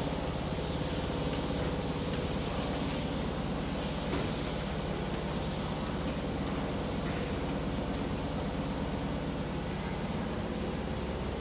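Kobe Municipal Subway 1000 series and 3000 series trains standing at the platform with their equipment running: a steady hum and hiss with a few held low tones, and a faint knock about four seconds in.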